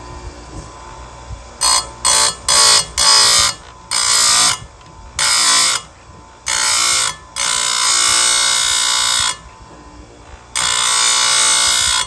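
A bench saw-chain grinder's spinning wheel is brought down onto a chain's cutter tooth again and again, giving a loud high-pitched grind each time it bites. First come four quick touches (bump cuts that keep the tooth cool), then longer grinds of one to two seconds as the wheel is held on to hone the cutter, with the motor's quieter hum between them.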